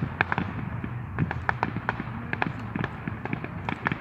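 Fireworks going off, a run of sharp irregular pops and cracks, several a second.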